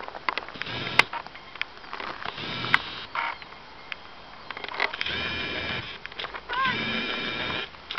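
A woman's drawn-out, nasal whining and whimpering, four or five sounds in a row each held at a steady pitch, a reaction to biting midges as she swats at them. Two sharp clicks come about one and three seconds in.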